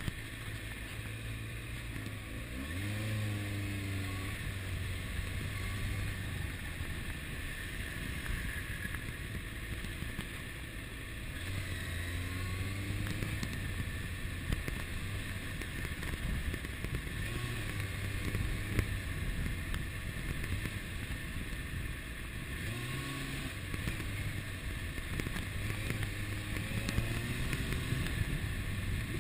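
2001 Kawasaki ZX-6R's inline-four engine running at low speed, its pitch rising briefly three times as the bike accelerates, with a steady rush of wind on the microphone.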